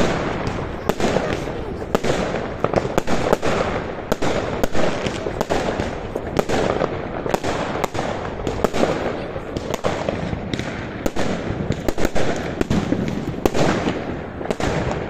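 Many fireworks going off at once: a dense, irregular string of sharp bangs and crackles without a pause.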